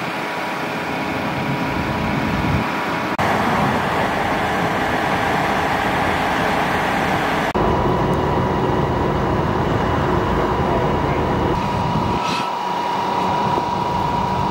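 A fire engine's pump runs with a steady rushing noise while hoses spray water onto a burning car. A steady high tone joins in about eight seconds in, and the sound changes abruptly about three and about seven and a half seconds in.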